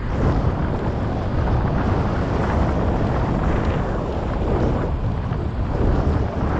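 Wind buffeting a GoPro action camera's microphone on a moving bicycle, a steady low rumble.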